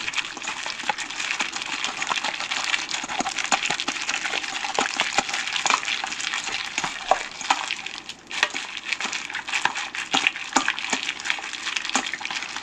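Gloved hands kneading raw chicken thigh pieces in marinade in a stainless steel bowl: continuous wet squishing of meat and sauce with many small clicks, easing briefly about eight seconds in.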